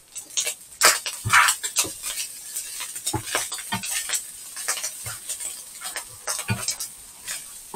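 A cooking utensil knocking and scraping against a large frying pan as fried rice is stirred and tossed, in irregular clicks and knocks.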